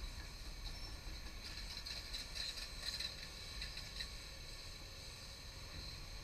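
Tipper truck's diesel engine rumbling low as it drives off across rough site ground, with a run of clanks and rattles from the truck body between about one and four seconds in, growing fainter as it goes.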